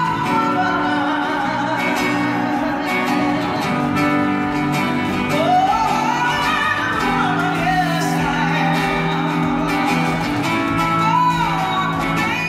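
A woman singing live to her own acoustic guitar, the voice sliding between held notes over steady strummed chords, carried in the echo of a large hall.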